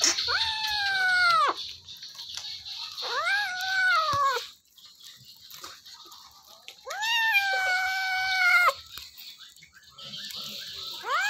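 Kitten yowling while it chews raw chicken: three long, wavering cries that rise and then fall in pitch, a few seconds apart, with a fourth starting near the end. It is a protest at being touched while eating.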